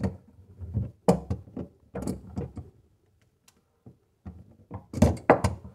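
Channel-lock pliers gripping and turning a plastic sink-drain adapter nut as it is tightened: irregular clicks and knocks of the jaws on the plastic fitting, with a louder cluster of them near the end.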